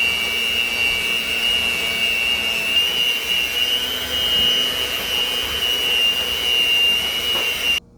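Electric mixer running at speed, beating cake batter with a steady high whine. It cuts off suddenly near the end.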